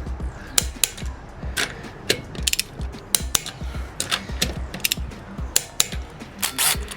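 Irregular metallic clicks and clacks of hand tools working on a wheel hub during a wheel spacer install, over repeated low thuds.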